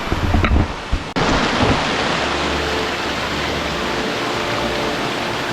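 Creek water rushing steadily, a loud even hiss, with a few low bumps on the microphone in the first second.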